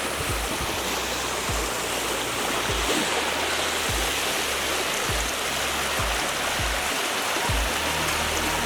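Steady rush of a waterfall's falling water, with occasional dull low thumps.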